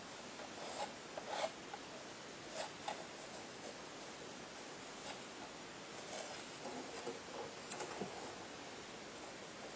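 A palette knife working paint on paper, with the sheet handled: scattered short scrapes and rustles, a few at a time, over a faint steady hiss.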